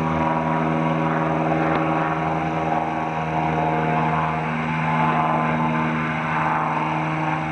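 Propeller airplane flying past, its engine and propeller making a steady droning hum that wavers slightly in pitch midway.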